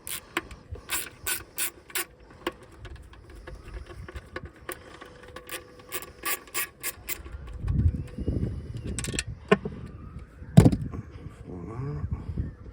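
Hand tools working on a cast aluminium LED light fitting as its bolts are undone and the housing is opened: runs of sharp metallic clicks, with a few heavier knocks in the second half.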